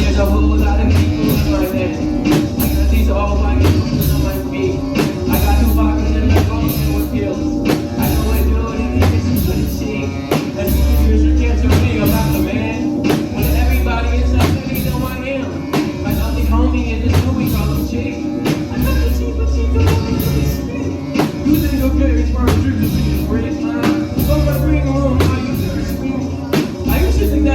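Music playing through a sound system during a sound check: a beat with heavy bass notes repeating every second or two and steady ticking hi-hats, with some singing over it.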